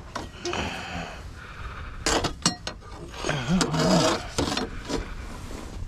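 Knocks, rubs and clicks of a fish measuring board being picked up and moved about on the metal diamond-plate floor of a boat, with a cluster of sharp clicks about two seconds in.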